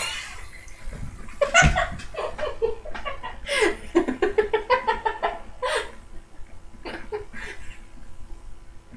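Two young people laughing in fits and bursts, with a thump about a second and a half in.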